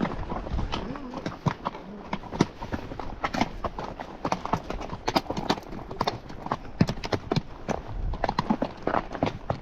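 Horse hooves clopping as the horse walks along the trail, an uneven run of hoofbeats.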